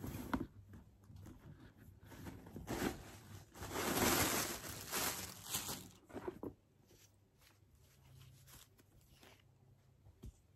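Rustling of packing material as a handbag is unwrapped, with the felt protector pulled from under the bag's flap; it is loudest a few seconds in, then settles to soft handling sounds with a faint click near the end.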